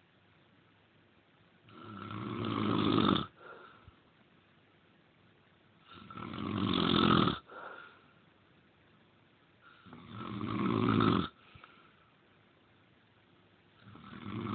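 Loud snoring, one long snore about every four seconds, four in all, the last starting near the end. Each swells over about a second and a half, stops abruptly, and is followed by a short faint breath.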